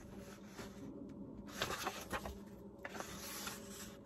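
Pages of a hardbound cookbook being turned and handled: faint paper rustling and sliding in several swells, with a few light ticks.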